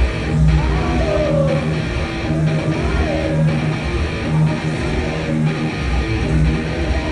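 Heavy metal band playing live at full volume: a distorted electric guitar riff with bass and drums, hitting heavily about once a second, and guitar notes bending over it.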